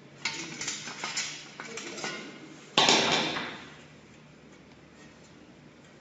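Metal clicks and clatter from a CNC bending machine working aluminum coil strip, then one loud metallic clank just under three seconds in that dies away within about half a second.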